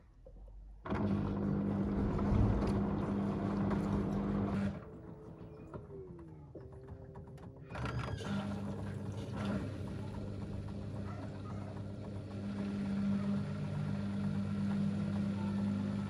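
LG DirectDrive front-loading washing machine spinning a heavy, water-soaked carpet in its final 1400 rpm spin, a steady motor hum with a whir. The hum drops away sharply about five seconds in, leaving a quieter stretch with a falling tone. It comes back abruptly about eight seconds in and grows louder towards the end.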